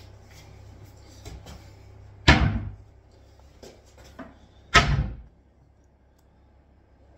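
Two loud knocks about two and a half seconds apart, with a few lighter clicks and taps between them.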